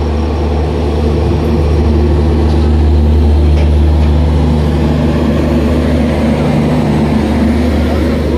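Express passenger train running, heard from aboard: a loud, steady low drone with a constant hum, slowly growing a little louder.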